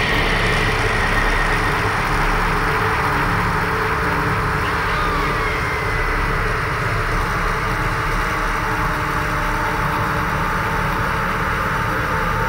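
A dense, unbroken wall of noise with steady low droning tones underneath, from an experimental noise music track.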